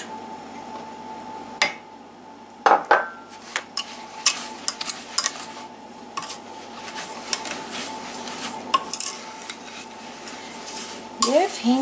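A black-coated whisk stirring flour, sugar and egg in a stainless steel saucepan, knocking and scraping against the pot in quick irregular clicks, with one louder knock about three seconds in.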